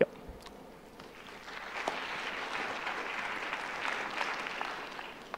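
Audience applauding, building up about a second and a half in and dying away near the end.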